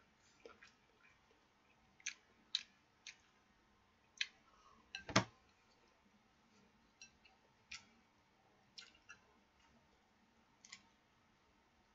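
Faint, scattered clicks and ticks of someone eating soy-sauce stir-fried bacon, with one louder knock about five seconds in.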